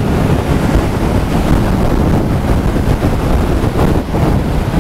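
Heavy, steady wind rush on the microphone of a 2016 BMW R1200 GS Adventure riding at road speed, with the motorcycle's engine and road noise underneath.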